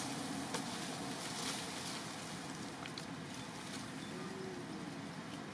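Steady outdoor background noise with a few faint clicks.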